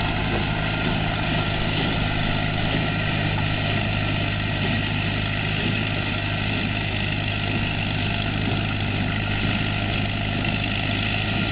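Farm tractor and square hay baler running steadily in the field, a continuous even engine drone with the baler's machinery running along.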